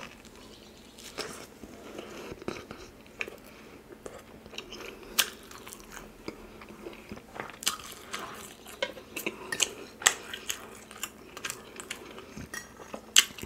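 Close-up chewing and mouth sounds of a person eating, with scattered wet smacks and small clicks.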